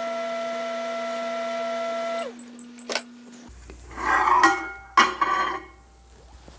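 Panasonic inverter microwave oven running with a steady hum that winds down about two seconds in, as the cycle ends and a few short high beeps sound. The door clicks open, then a plate clatters and scrapes on the glass turntable as it is pulled out.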